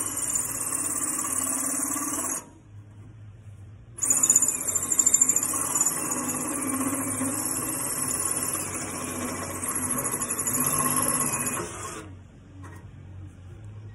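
Cordless drill with a hole saw cutting through the steel housing of a truck's SCR catalyst, running with a high-pitched squeal. It stops about two and a half seconds in, starts again about a second and a half later, and runs until about twelve seconds in.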